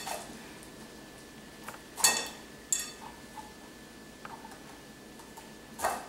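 A metal spoon scraping out a spaghetti squash half over a glass bowl, with three short ringing clinks of spoon on glass: about two seconds in, a moment later, and near the end.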